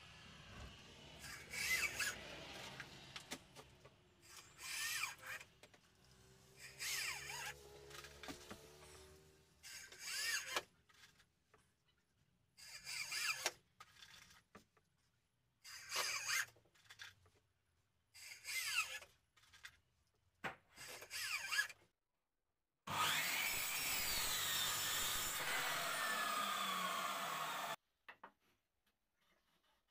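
Power drill-driver driving screws into pallet wood in a series of short bursts of about a second each, its whine sliding in pitch as each screw goes in. Near the end comes one longer, steady run of about five seconds.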